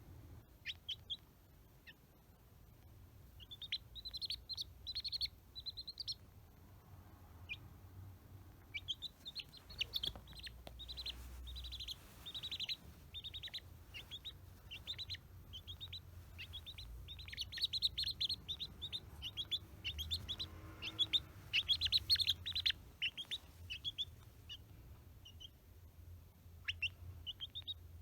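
A three-day-old chick peeping: short, high, falling peeps in quick runs of several a second, with brief pauses between runs.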